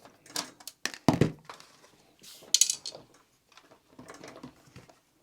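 Knocks, clicks and a short scrape from handling the plastic casing and parts of a stereo unit while taking it apart, the loudest a dull thump about a second in.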